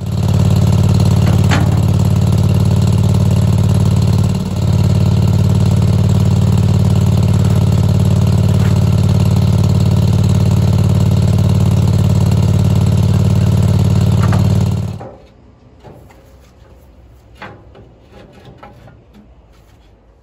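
Garden tractor engine running steadily at a constant speed, with a brief dip about four seconds in; the sound cuts off abruptly about fifteen seconds in, leaving a few faint knocks.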